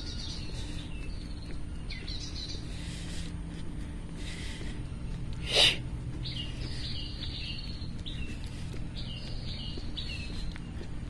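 Birds calling in the trees: short series of falling chirps, repeated more and more often through the second half. One sharp, loud note stands out about halfway through, over a steady low hum.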